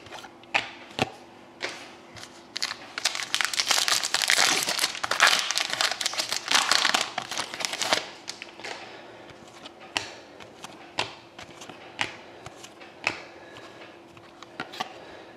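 Shiny trading-card pack wrapper crinkling as it is torn open and crumpled, densest from about three to eight seconds in. Before and after it come soft clicks and slides of cards being flipped through by hand.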